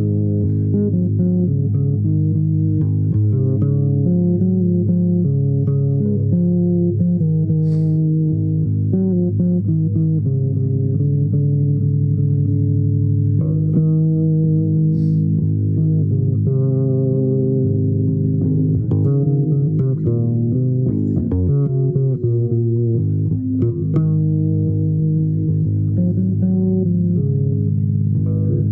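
Bass guitar played solo in a continuous improvisation of low plucked notes, some of them wavering in pitch.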